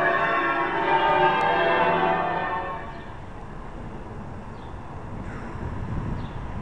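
Church bells ringing changes: many overlapping bell tones. They cut off abruptly about three seconds in, leaving a quieter outdoor background with a low rumble.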